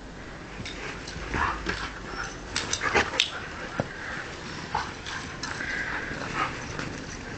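Two huskies playing in snow: short, irregular vocal sounds and scuffles, loudest a few seconds in.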